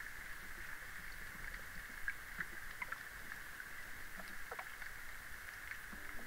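Underwater ambience: a steady hiss with scattered faint clicks and ticks, and a few short falling chirps. Music comes in right at the end.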